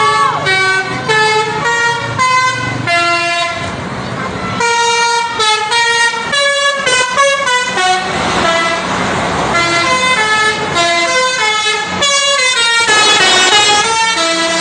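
Bus basuri ('telolet') musical air horn playing a fast melody of short notes that step from pitch to pitch. There is a stretch of rushing noise in the middle.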